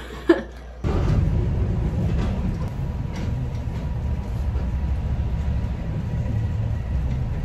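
Steady rumble of a city bus riding along, heard from inside the cabin, starting about a second in.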